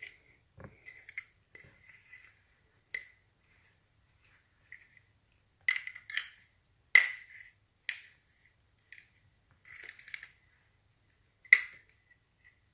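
A fork clinking and scraping against a custard cup while stirring a soupy butter and brown sugar mixture. The sound is a string of short, sharp ringing clinks with softer scrapes between them, the loudest clinks clustered in the middle and one more near the end.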